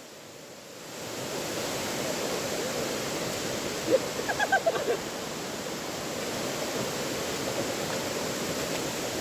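Waterfall rushing: a steady, even roar of falling water. About four seconds in, a person's voice is heard briefly over it.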